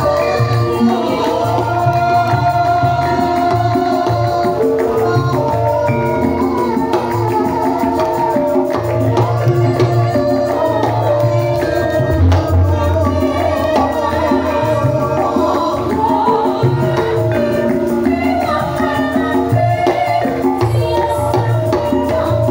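Javanese gamelan music playing steadily: held metallophone tones with regular kendang drum strokes underneath.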